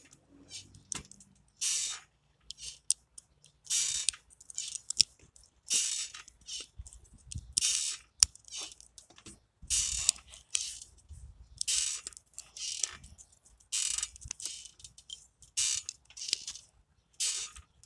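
Plastic LEGO Technic pieces clicking and rubbing as they are handled and pressed together, with short raspy noises about every two seconds and small sharp clicks in between.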